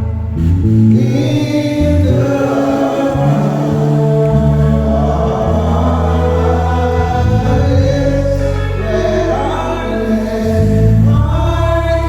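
A group of vocalists singing together in harmony over long held low notes that shift every second or two.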